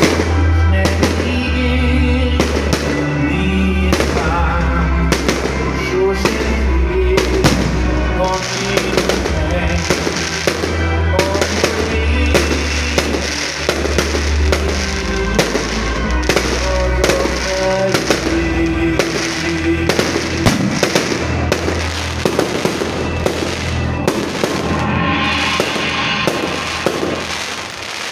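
Aerial fireworks bursting in quick succession, many sharp bangs with crackling near the end, over loud music with a deep, heavy bass.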